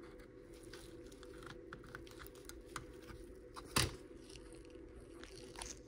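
Side cutters snipping a thin hookup wire, the orange antenna lead of a transistor radio, with one sharp snap nearly four seconds in, among light clicks and rustles as the circuit board is handled.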